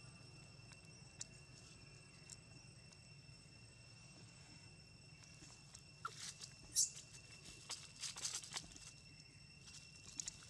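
Dry fallen leaves crackling and rustling under the feet of long-tailed macaques walking over leaf-littered ground, a flurry of crunches starting about halfway through, with a few more near the end.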